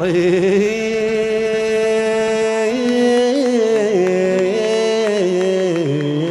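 A male voice sings a long wordless melisma in a Kabyle song, holding a note with vibrato and then stepping down in pitch, accompanied by a plucked mandole and the band.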